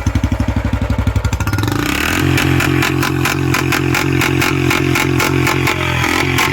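A 2019 Royal Enfield Classic 350's single-cylinder engine, just started, runs through a long bottle Punjab aftermarket silencer with evenly spaced exhaust beats. About two seconds in the revs rise, and the engine holds there with a faster, steady beat.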